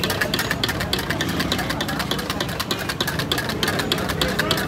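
Wire whisk beating eggs in a stainless steel bowl: rapid, even clicking as the wires strike the metal, several strokes a second.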